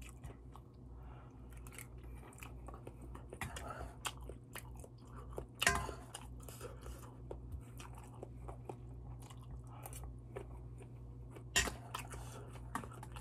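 Close-up chewing and biting of spicy malatang soup, with soft wet irregular mouth clicks throughout and two sharper, louder clicks, about 6 seconds in and near the end. A steady low hum runs underneath.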